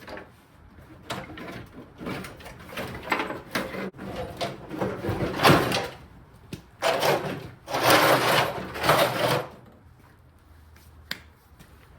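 Irregular scraping and clattering of parts being worked loose and handled, loudest about halfway through and again from about seven to nine and a half seconds in, with a few sharp clicks.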